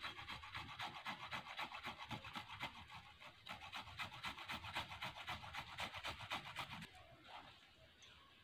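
Fresh ginger rubbed on a small metal hand grater: quick rasping strokes at about three a second, stopping about seven seconds in.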